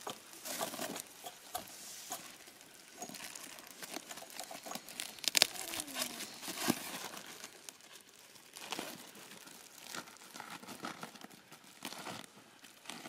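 Woven plastic sheeting crinkling and rustling as it is handled and pulled apart into strips, with irregular crackles and a sharp snap about five seconds in.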